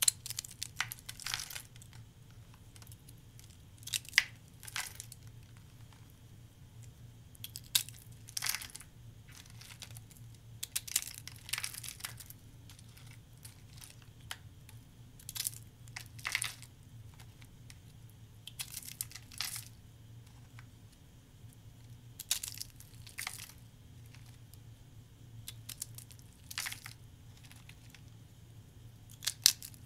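Dry soap curls crushed between the fingers in a plastic tub: short, crisp crackling crunches that come in bursts every couple of seconds.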